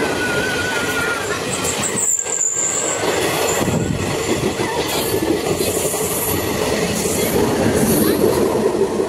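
Passenger train coaches rushing past close by at speed: a steady rolling rumble of wheels on rail with clickety-clack, and thin high wheel squeals in the first few seconds.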